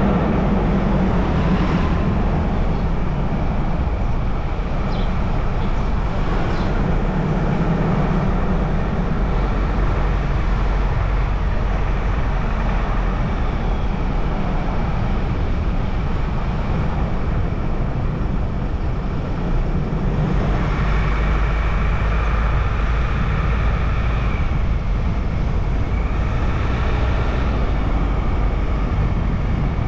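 Steady road noise of a car driving: a continuous low rumble of tyres and engine.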